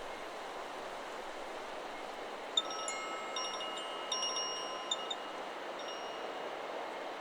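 Chakra Chimes 'Solar Plexus' wind chime stirred by the wind: a cluster of strikes starting about a third of the way in, its several tones ringing on for a couple of seconds, then a faint single note. Steady wind hiss runs underneath.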